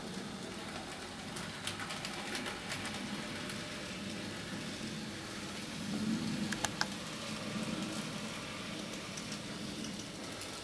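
N gauge model train running on the layout's track: a low steady hum with scattered light clicks, and a louder cluster of clicks about six to seven seconds in.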